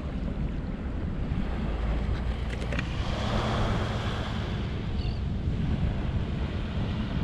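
Small surf waves washing onto a sandy beach, one wash swelling about three seconds in, under steady wind buffeting the microphone.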